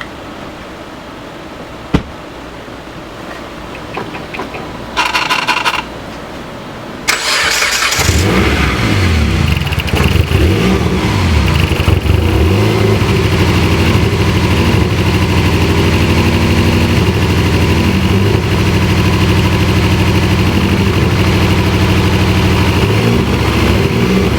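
Dodge Caliber SRT-4's turbocharged four-cylinder engine: a brief buzz about five seconds in, the starter cranking about two seconds later, then the engine catching and running, unsteady for a few seconds before settling. The owners take the running to be rough, with a cylinder not firing.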